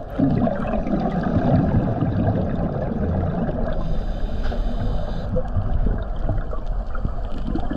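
Muffled underwater rumble and gurgle of a scuba diver's regulator and exhaled bubbles, stepping up just after the start and running on in a steady churn.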